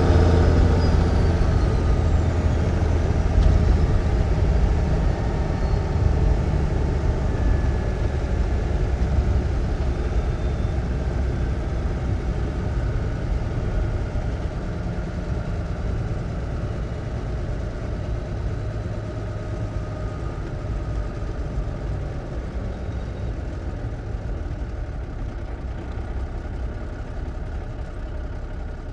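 A 1954 big-rig truck's engine heard from inside the cab, running low and steady and gradually growing quieter as the truck settles toward idle.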